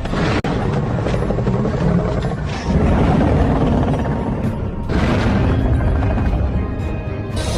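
Loud, dense music with a heavy low rumble, cutting in suddenly out of silence.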